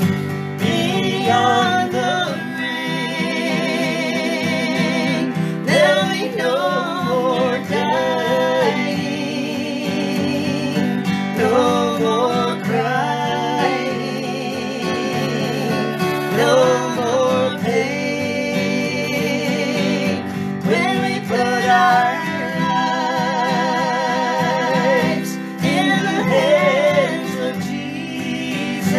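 Acoustic country gospel duet: a man strumming an acoustic guitar while he and a woman sing together, with vibrato on the held notes.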